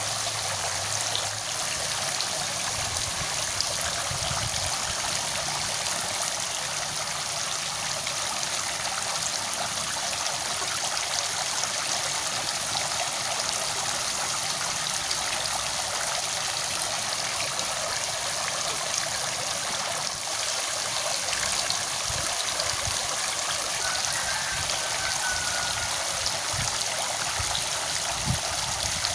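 Steady rush of running water, like a stream flowing past.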